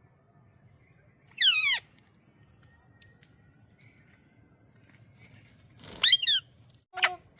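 Parrot calls: a loud, high call falling steeply in pitch about a second and a half in, then another call about six seconds in and a short one near the end.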